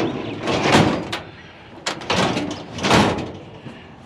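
Metal filing cabinet drawers being slid open and pushed shut, a few times over, with a rattling, scraping slide and knocks of sheet metal. The cabinet is being checked for contents.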